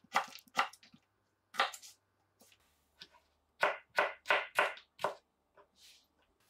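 Chef's knife cutting a peeled raw potato on a cutting board: a series of separate sharp knife taps on the board, with a quick run of five about halfway through.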